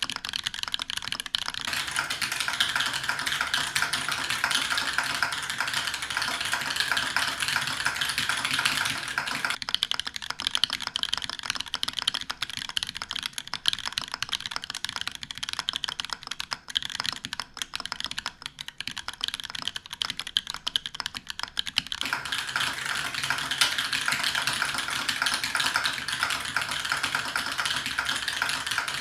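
Continuous fast typing on a TGR Alice custom mechanical keyboard with Holy Panda tactile switches, a copper plate, a polycarbonate case and GMK keycaps, a steady stream of key clacks. The tone of the clacks changes about ten seconds in and again about twenty-two seconds in.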